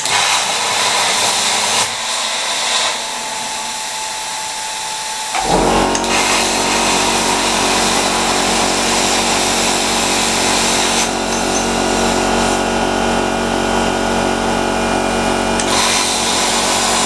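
Plasma cutter: a hiss of air, then about five seconds in the arc strikes and runs with a steady, loud buzzing hiss and hum.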